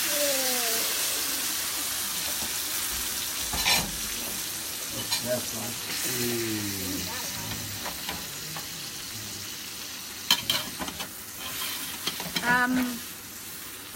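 Pork frying in an electric skillet, a steady sizzle with a few sharp clicks of a utensil against the pan.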